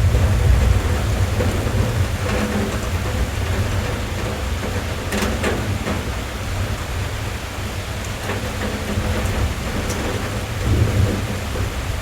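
Steady rain on a car's roof and windows, heard from inside the cabin, with a deep low rumble underneath that swells briefly near the end.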